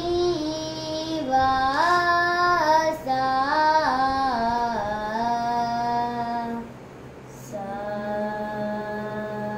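A boy singing a Carnatic thana varnam unaccompanied, moving in steps between held notes through long phrases. He breaks off about seven seconds in, then holds one long steady note near the end.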